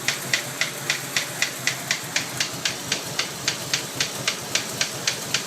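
A 1992 Mitsubishi 3000GT VR4's twin-turbo V6 idling warm with a sharp, regular knock about four times a second over a steady hiss. The knock comes on once the engine has warmed up, together with black smoke from the tailpipe, and the owners place it at cylinder 6, near the oil filler cap.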